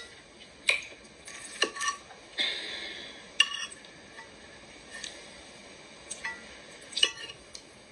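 Dishes and cutlery clinking and clattering: a few sharp clinks spaced a second or more apart over a low background hiss.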